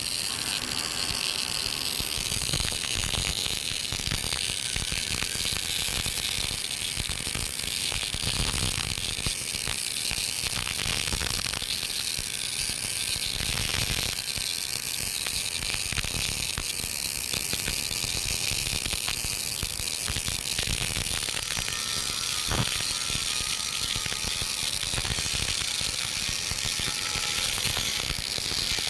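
MIG (GMAW) welding arc crackling steadily with a fast, even run of clicks while an open-root pass is laid uphill.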